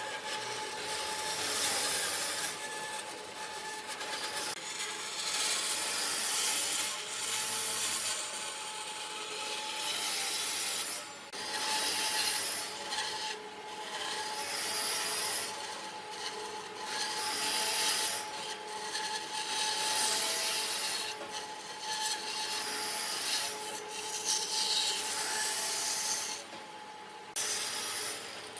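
Abrasive rubbing on wood in repeated strokes of a second or two each, with short pauses between runs, over a faint steady hum.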